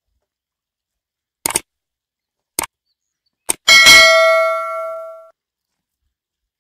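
Subscribe-button animation sound effect: three mouse clicks about a second apart, then a bright notification bell ding that rings out and fades over about a second and a half.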